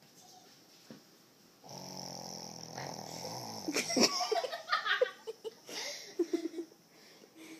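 A sleeping animal snoring: one long, loud snore beginning about two seconds in, followed by a few seconds of quieter, broken wheezy breaths.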